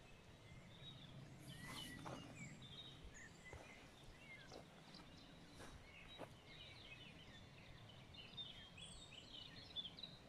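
Near silence with faint birdsong: scattered short chirps, busier near the end, and a few faint clicks.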